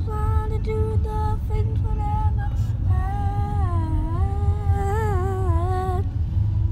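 A high voice carries a tune over the steady low rumble of a car on the move: short held notes at first, then a longer wavering line from about three seconds in, which stops about a second before the end.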